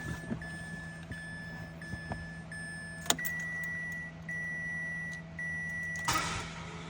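A car's start attempt on a nearly dead 5.6-volt battery. A dash warning tone beeps on and off throughout, and there is a sharp click about three seconds in. Near the end the starter motor whirs freely without engaging the flywheel, because the solenoid's pull-in and hold-in coils cannot build a strong enough field on the weak battery.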